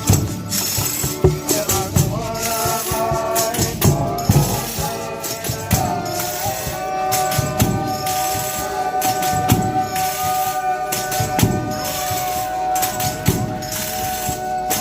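Folia de Reis music: pandeiros (tambourines) jingling and beating about once a second, with pitched parts shifting over the first few seconds and then one long note held from about six seconds in to the end.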